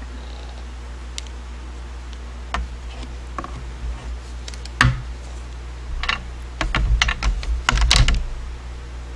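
Thin plywood cutouts knocking and clattering as they are lifted and set down on a craft mat: scattered clicks at first, one sharp knock midway, then a busy cluster of taps near the end, over a steady low hum.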